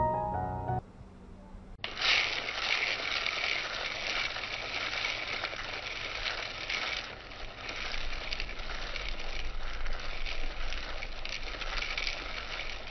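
Small homemade electric rice mixer running: a wooden paddle churns rice grains in a plastic cup, a steady rattle of the grains against the plastic that starts about two seconds in.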